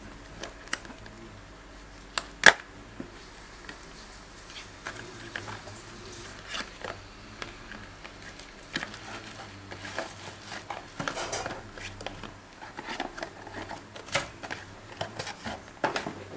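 Cardboard box and plastic wrap handled by hand: cardboard scraping and sliding as the box is opened and the inner tray pushed out, with plastic crinkling and scattered taps. A single sharp tap about two and a half seconds in is the loudest sound.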